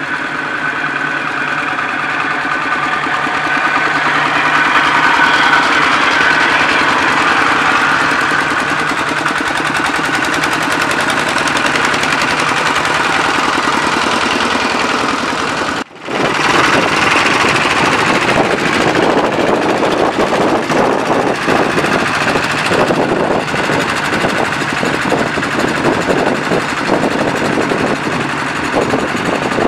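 Engines of small Thai-built farm tractors running as they drive past, a steady drone that swells around five seconds in. After a cut about 16 seconds in, a closer tractor engine is heard as a rapid, rough knocking chug.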